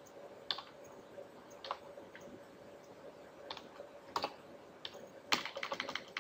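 Computer keyboard keys tapped one at a time, sparse and irregular about a second apart, then a quick run of several keystrokes near the end.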